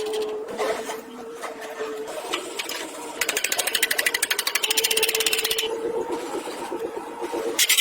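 A small machine running with a steady hum. About three seconds in it breaks into a fast, even rattle of roughly twenty strokes a second that lasts a couple of seconds, and a sharp loud noise comes at the very end.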